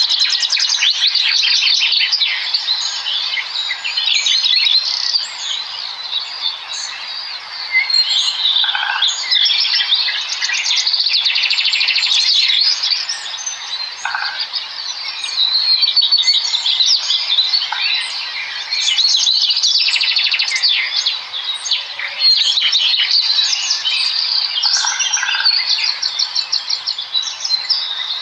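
Many small birds chirping and chittering together, a dense overlap of rapid trills and high tweets with a few lower notes mixed in.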